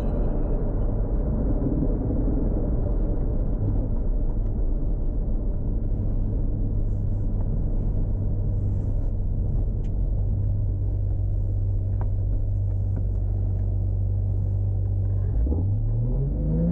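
Toyota Supra MK4's turbocharged 2JZ inline-six engine running at steady low revs with a low, even drone, then rising in pitch near the end as it accelerates.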